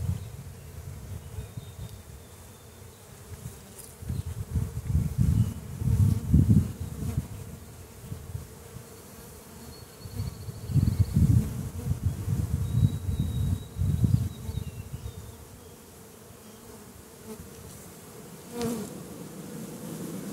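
Honeybees buzzing around an opened hive, the hum swelling and fading several times as bees fly close past the microphone. A single knock sounds near the end.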